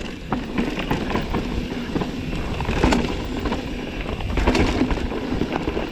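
Mountain bike descending a rough dirt trail: tyres crunching over the ground and the bike rattling, with sharp knocks every so often as it hits bumps, over a steady low rumble.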